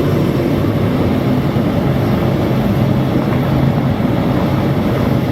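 Car engine running steadily with a low hum and road-like noise.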